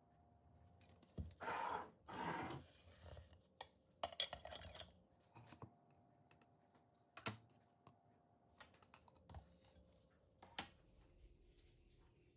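Kitchen handling noises from preparing food by hand: two short rustling scrapes about a second in, another burst around four seconds, and a few sharp clicks and taps after that, all faint.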